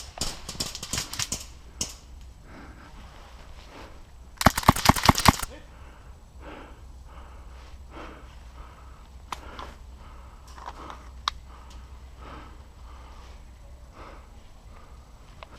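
A rapid burst of airsoft gunfire, about a second long, comes about four and a half seconds in and is the loudest sound. Around it, scattered light ticks and crunches of feet moving through forest undergrowth.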